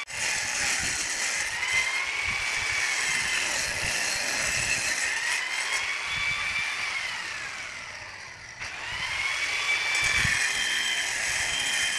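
Handheld angle grinder running and cutting mosaic pool tiles: a steady high whine with a gritty hiss that slowly rises and falls in pitch as the disc works along the tile. It dies away about eight seconds in, then spins up again.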